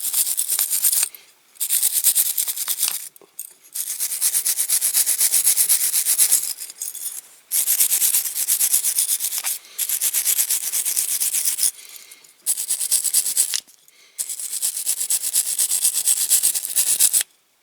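Wire brush scrubbed hard in fast back-and-forth strokes over a die-cast metal model car body, scouring off paint loosened by a caustic soda soak. The scrubbing comes in spells of a few seconds with short pauses between.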